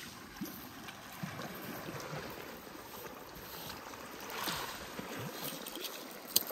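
Steady wash of water on a pebble beach, with gravel scraping and pebbles clicking as fingers dig a die-cast toy car out of it. A swell of scraping comes about four and a half seconds in, and a sharp click near the end.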